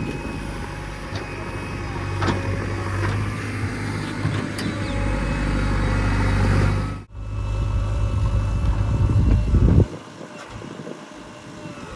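Diesel engines of construction machinery running steadily, with a few sharp metallic clanks. The sound cuts out for a moment about seven seconds in, and the engine noise drops away sharply near the end.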